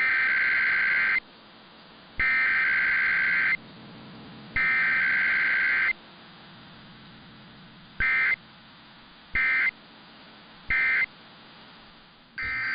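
Emergency Alert System SAME digital data bursts: a test header sent three times as harsh, buzzing two-tone screeches of about a second each, then three short end-of-message blips with no spoken message in between. The next alert's header burst starts near the end.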